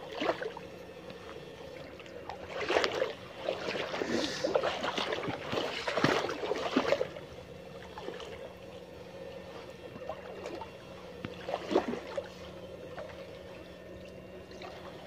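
Shallow stream water splashing and sloshing as two electrofishing poles are swept through it, in bursts that are strongest from a few seconds in until about the middle and again briefly later, over a faint steady hum.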